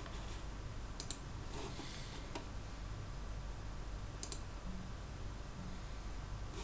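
A few sharp clicks at a computer, in two close pairs about a second in and about four seconds in, over a steady low hum.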